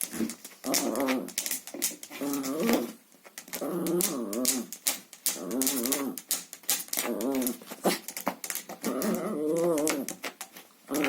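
Chihuahua growling in repeated bouts of about a second each, with a wavering pitch, and sharp clicks between and during the growls.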